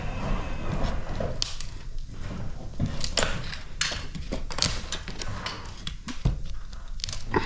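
Irregular knocks, thuds and clattering from hand demolition of a wall, with debris being struck and falling.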